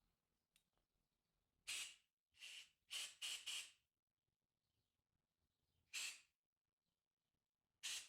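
Short blasts of compressed air from a blow gun, clearing gummed-up stale fuel out of a Briggs & Stratton mower carburetor's passages. There is a single hiss, then four in quick succession, then two more single blasts a couple of seconds apart.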